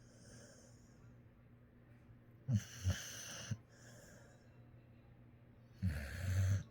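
Dog snoring in its sleep: two snoring breaths in, one about two and a half seconds in and one near the end, each with a low rumble. Soft hissing breaths out come between them.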